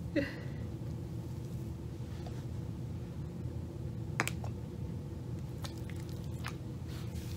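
Soft squishing of hands working deep conditioner through a section of wet curly hair, with one sharp click about four seconds in.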